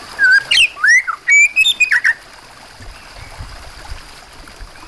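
Oriental magpie-robin singing a quick run of loud whistled, sliding notes and sharp chirps for about two seconds, then falling silent. A steady trickle of running water underneath.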